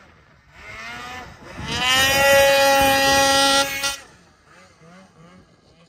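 Snowmobile engine revved hard as the sled pulls a wheelie through powder: the pitch climbs about a second and a half in, holds high and loud for about two seconds, then drops away to a faint, wavering engine note.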